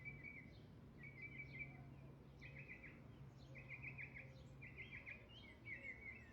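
Songbird singing faintly in short chirping, trilled phrases that repeat about once a second.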